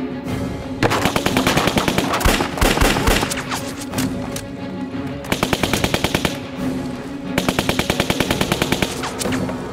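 Submachine-gun fire in three long bursts of rapid automatic shots, about ten a second, with background music underneath.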